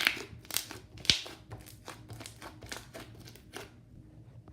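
Homemade fluffy slime of shaving cream, glue, contact lens solution and glitter being squished and stretched close to the microphone, giving a run of irregular wet crackles and pops. The loudest pops come at the start and about a second in, and they thin out after about three and a half seconds.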